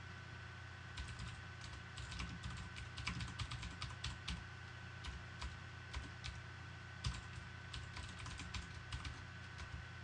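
Computer keyboard typing: quick, irregular runs of keystrokes with short pauses between words.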